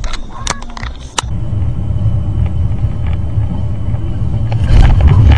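A few sharp cracks, then a car's steady low road and engine rumble heard from inside the cabin, which grows louder with a rushing hiss near the end.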